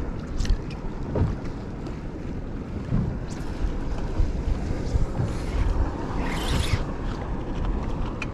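Wind buffeting the microphone over water lapping against a kayak on the open sea, with a few light clicks in the first second and a brief hiss about six seconds in.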